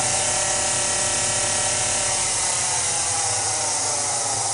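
Acroloc M10 CNC mill spindle and its belt drive running at steady speed in low range after ramping up, a whine of several steady tones over a loud hiss. The sound drops away sharply near the end.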